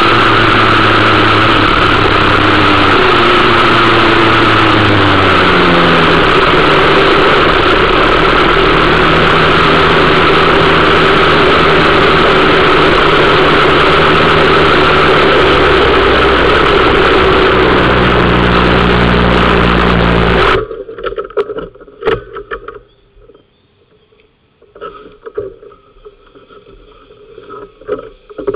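125 cc two-stroke kart engine running loud and close. Its pitch falls as the kart slows, then it runs lower until it cuts off suddenly about 20 seconds in, leaving only faint scattered knocks.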